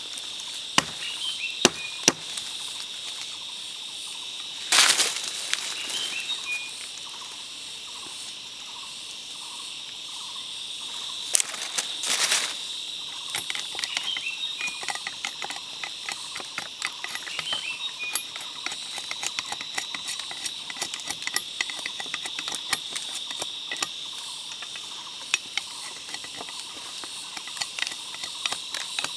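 Steady high-pitched drone of a forest insect chorus, crickets or cicadas. Over it come many sharp clicks and small knocks, thickening in the second half, and two short rustling bursts about five and twelve seconds in.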